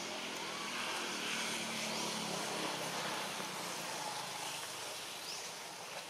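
Distant engine drone passing by, swelling over the first two or three seconds and fading toward the end.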